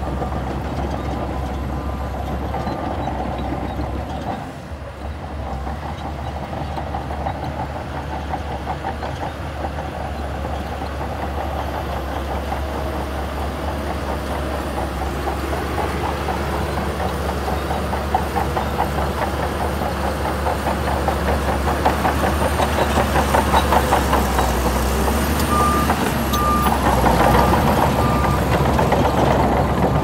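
Shantui crawler bulldozer's diesel engine running under load, with the rapid clatter of its steel tracks as it pushes sand; it grows louder over the second half. Its reversing alarm beeps near the start and again near the end.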